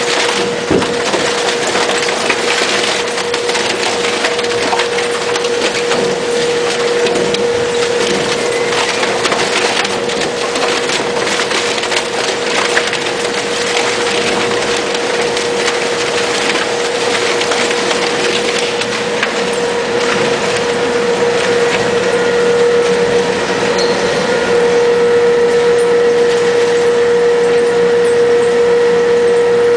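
Polystyrene recycling machine crushing expanded polystyrene: continuous crackling and crunching over the steady hum of its motor. In the last several seconds the crunching thins out and the machine's steady hum grows a little louder.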